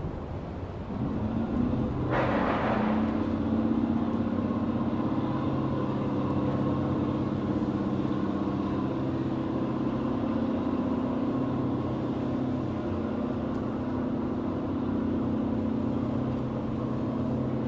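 An engine or motor starts up about a second in and runs steadily with a low hum. A short hissing burst comes about two seconds in.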